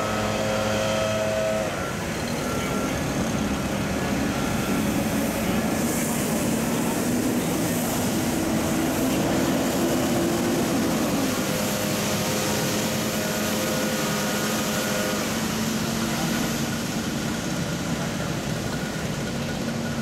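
Diesel engines of heavy work trucks running steadily: a tanker truck, then a street sweeper truck moving over the milled asphalt, with a broad rushing noise in the middle.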